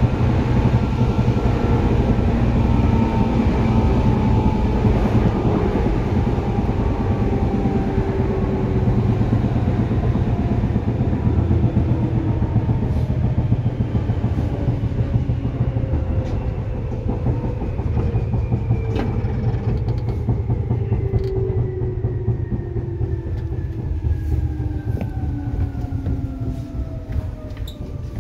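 Seibu 2000 series electric train running, heard from inside the car: a steady low rumble with traction motor and gear whine that falls slowly in pitch as the train slows. A few sharp clicks come in the second half.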